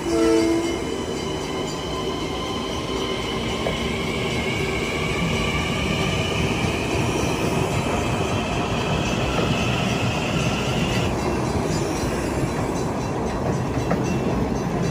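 Kawasaki M9 electric multiple-unit train accelerating away from the station. Its motor whine climbs steadily in pitch for about nine seconds, then cuts off suddenly, over continuous wheel and rail noise. A short tone sounds right at the start.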